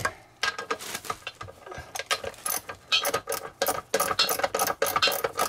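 Socket ratchet clicking rapidly in short runs, with a metallic ring, as it backs out a 3/8-inch screw that holds a plastic RV toilet bowl to its base. It starts about half a second in and gets busier in the second half.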